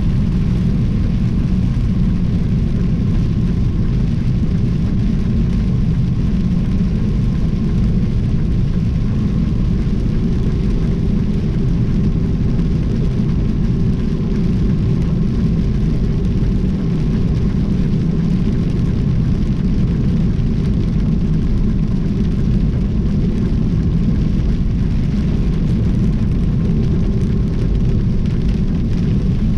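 Semi-truck cab at highway speed: a steady low drone of engine and road noise, with a faint steady hum on top.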